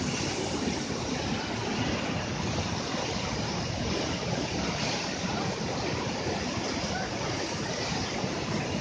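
Mountain river rushing steadily over boulders and rapids, a continuous sound of white water.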